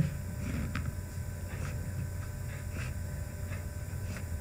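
A few faint, short scratching strokes of a stylus drawing lines on a tablet, over a steady low hum.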